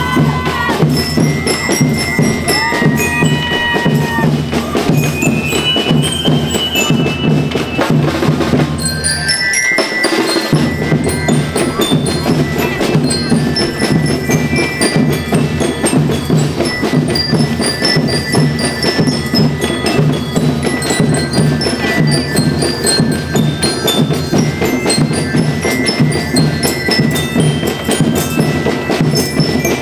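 School rhythm band playing: glockenspiels ring out a melody of short bright notes over a steady drum beat. The drums drop out briefly about ten seconds in.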